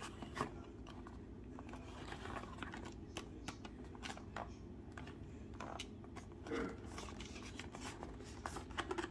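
Handling noise from a toy's cardboard-and-plastic window box being held and turned in the hands: irregular rustles, crinkles and light taps.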